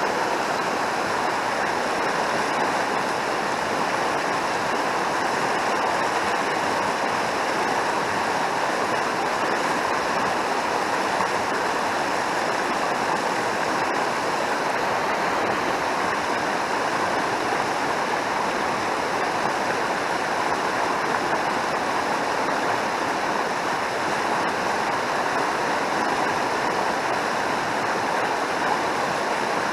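Mountain stream rushing steadily, a continuous even wash of running water.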